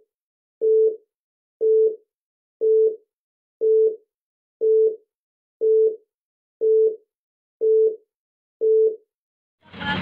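A single steady electronic beep tone repeating about once a second, nine times, each beep about half a second long with silence between, like a telephone busy signal. Just before the end, loud engine noise cuts in.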